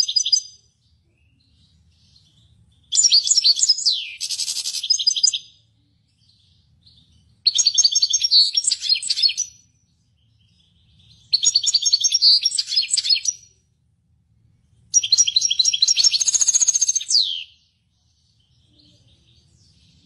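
Caged European goldfinch singing: four phrases of rapid, high twittering trills, each about two seconds long, with pauses of about two seconds between them.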